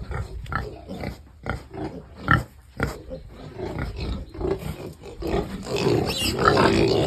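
Pigs grunting in short separate calls, one louder call about two seconds in, and then denser, louder calling from about five and a half seconds in.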